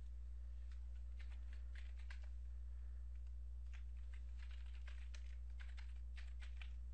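Computer keyboard typing: short clusters of key clicks, some quick runs and single presses. A steady low hum runs underneath.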